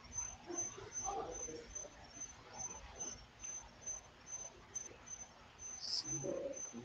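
Steady high-pitched chirping, about four chirps a second, typical of a cricket, over a faint low murmur.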